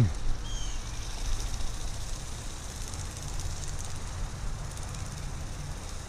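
Wind buffeting the microphone outdoors: an uneven low rumble with a faint high hiss.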